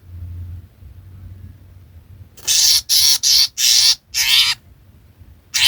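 A bird giving a rapid series of loud, harsh, grating calls, five in about two seconds starting near the middle, then another run beginning near the end.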